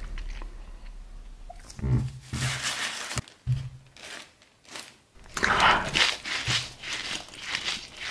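Paper sandwich wrapper crinkling and rustling in bursts as hands unwrap and handle it, with a sharp click about three seconds in.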